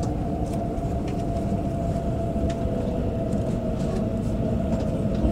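Steady running noise inside a Tohoku Shinkansen bullet train cabin at speed: a low rumble with a constant hum and a few faint clicks.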